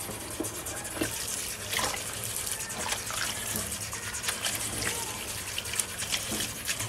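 Tap water running into a bowl in a stainless-steel kitchen sink while a hand swishes and squeezes shredded abacha (dried cassava) to rinse it, with irregular small splashes and knocks.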